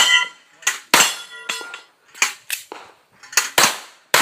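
Pistol firing in quick succession at a steel plate rack: about eight sharp cracks, with the steel plates ringing in clear tones after the first hits.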